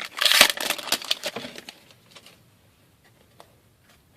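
Wrapper of an O-Pee-Chee Platinum hockey card pack crinkling loudly as it is torn open, dying away after about a second and a half into a few faint clicks of cards being handled.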